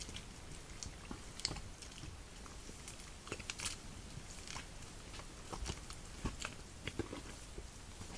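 Red deer moving about in a mud wallow: irregular soft crackles and snaps, with a few sharper ones about one and a half, three and a half, six and seven seconds in.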